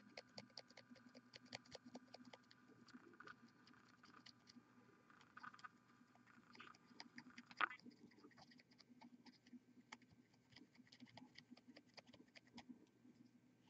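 Near silence, with faint, irregular scratchy ticks of a paintbrush stroking over a plastic miniature as pearl white highlight goes over the whole model, over a faint steady hum.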